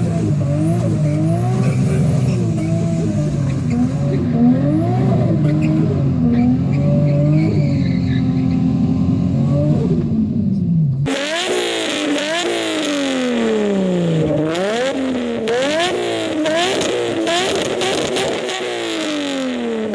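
Turbocharged Nissan RB25DET straight-six revving up and down again and again. About halfway through there is an abrupt change to a thinner sound with sharp rises and drops in revs.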